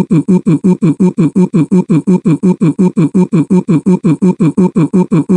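Looped cartoon crying sound: rapid, evenly repeating sobs, about five short cries a second, each falling in pitch.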